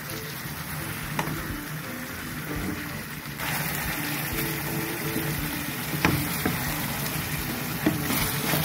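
Chicken pieces and onions frying in hot oil with a steady sizzle, which grows louder about three seconds in. A wooden spatula stirs them, knocking against the pan a few times.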